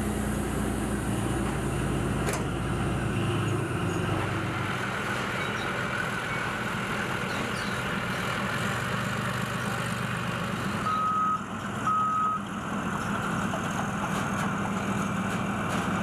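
Leopard 2 tank's V12 diesel engine running steadily. Two short high beeps sound about a second apart, roughly two-thirds of the way through.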